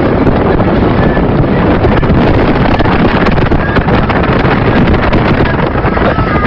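Loud, steady wind noise buffeting the microphone over the rush of cars driving at speed on a wet road.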